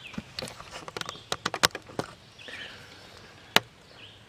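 Footsteps on a dry, leaf- and twig-littered forest floor: a run of irregular crunches and clicks, with one sharper knock near the end.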